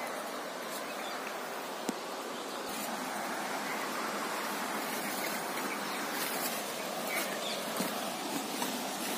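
Steady, even outdoor background hiss with a few faint clicks and taps.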